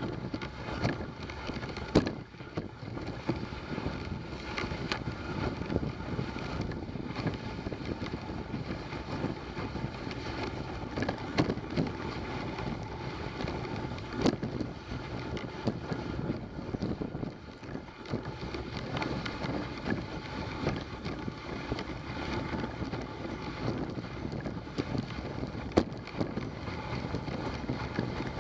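Dog sled moving along a snowy trail: a steady rushing of the runners over snow, mixed with wind on the microphone. Short knocks from the sled are scattered through it, with sharper ones about two seconds in, midway and near the end.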